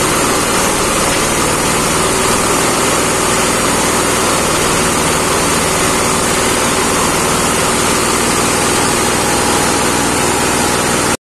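Hammer-mill feed grinder, belt-driven by a single-cylinder horizontal diesel engine, running steadily under load as corn cobs are fed in and ground to meal. The loud, even grinding noise and the engine beat go on without change.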